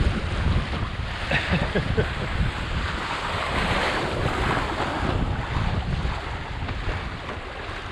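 Wind buffeting the microphone in a steady low rumble, with water rushing and splashing along the hull of a small sailboat under way.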